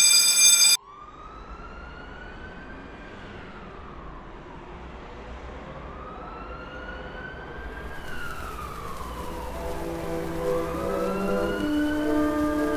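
Emergency vehicle siren in a slow wail, rising and falling in pitch about every five seconds and growing louder. A loud steady electronic beep cuts off about a second in, and held lower tones stepping down in pitch join in near the end.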